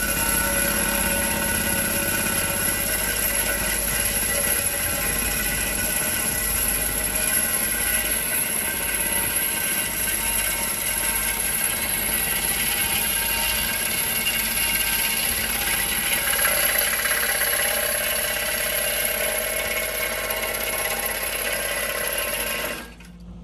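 Hydraulic hammer on a Cat 308 mini excavator driving a manta ray earth anchor's driving rod into the ground: a loud, steady, rapid hammering over the excavator's engine under load. It stops abruptly near the end.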